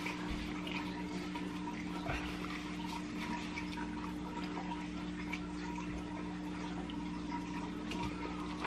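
Wet chewing and lip-smacking of a hot barbecue chicken wing being eaten close to the microphone, with small scattered clicks, over a steady low electrical hum.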